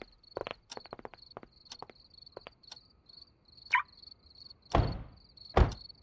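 Crickets chirping in a steady, even rhythm, with scattered small clicks and a short squeak. Two dull thumps about a second apart near the end are the loudest sounds.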